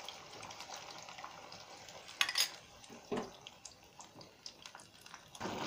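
Cornflour slurry being spooned a little at a time into a pan of simmering Manchurian gravy: soft liquid splashing and bubbling, with a few sharp clinks about two and three seconds in.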